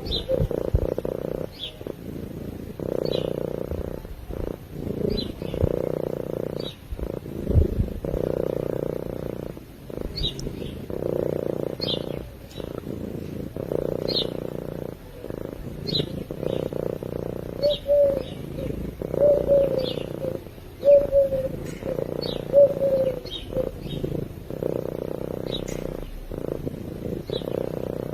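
Domestic cat purring in a steady, pulsing rhythm. Birds chirp briefly about once a second behind it, and a few short, low, falling calls come near the middle.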